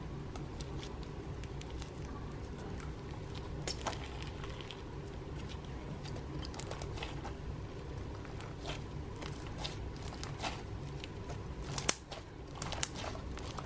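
Slime being handled by hand: scattered small clicks and pops, with one sharper, louder pop near the end. A steady low hum runs underneath.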